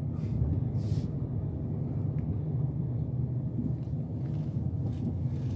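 Car engine and tyres heard from inside the cabin while driving slowly: a steady low rumble.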